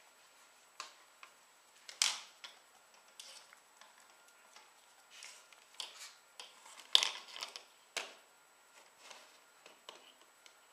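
Yorkshire terrier scuffling on a rug and tiled floor while playing with an object in its mouth: irregular clicks, scrapes and rustles, the loudest about two seconds in and again about seven seconds in.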